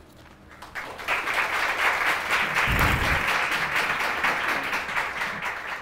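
Audience applauding, starting about a second in and thinning out near the end, with a low thump about three seconds in.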